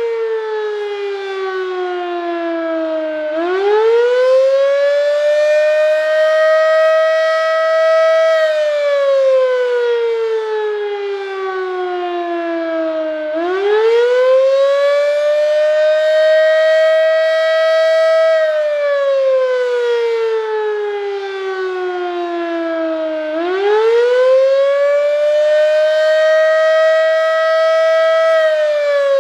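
Darley 3V8 fire siren wailing on test. Its pitch climbs over about three seconds, holds high for a couple of seconds, then slides slowly back down. The cycle repeats about every ten seconds, with three rises in all.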